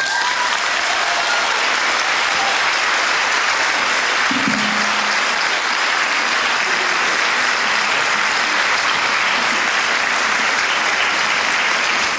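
Audience applauding steadily, a dense even clapping with the last instrument notes dying away under it as it begins.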